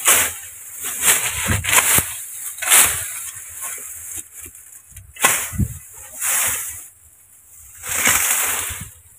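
A hoe swishing and scraping through dry grass and weeds and chopping into the dirt, in irregular strokes about a second apart, some with a dull thud.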